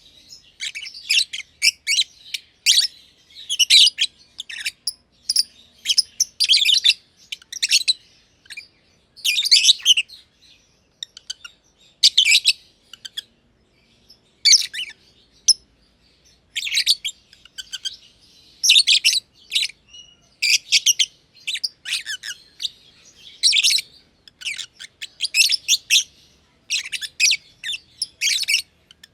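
Masked lovebirds (green and pied personata) chirping: rapid bouts of high-pitched chirps, each under a second long, with short pauses between them.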